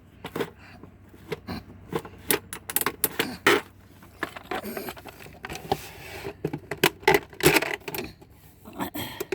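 Irregular clicks, knocks and small metallic rattles as something is worked loose and slid out of a small safe.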